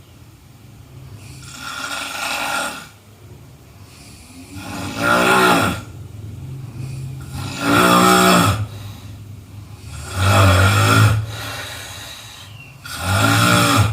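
A person snoring: five loud snores, about one every two and a half to three seconds, with quieter breathing between them.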